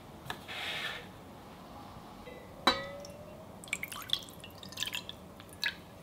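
Water drops falling into water: one sharp plink about halfway through with a short rising ring, then a scatter of smaller drips and plops. A brief hiss comes near the start.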